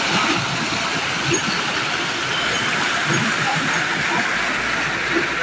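Steady rush of a fast-flowing stream churning into white water along a stone-walled channel.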